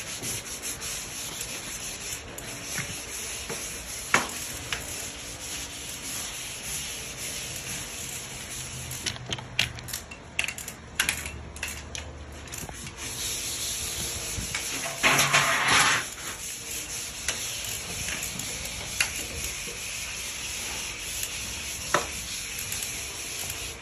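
Hand sanding block rubbing over dried drywall joint compound, a steady rasping hiss, broken by a few sharp knocks and a short louder scuff about two-thirds of the way through.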